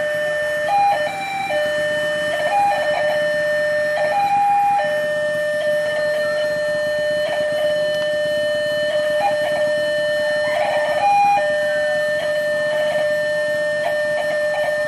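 Railway level crossing warning alarm sounding: a steady electronic tone that jumps briefly to a higher pitch now and then.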